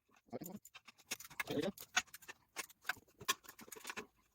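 Irregular light clicks and taps of metal tools and parts being handled, with two duller knocks, the first about half a second in and the second about a second and a half in.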